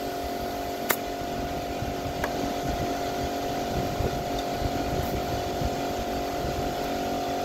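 A small motor running steadily: an even mechanical hum with several steady tones over a low rumble, with two light clicks about one and two seconds in.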